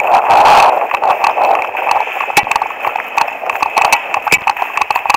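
Running footsteps on a gravel track with irregular clicks of trekking-pole tips, over rustling and wind rush on a body-worn camera's microphone that is loudest in the first second.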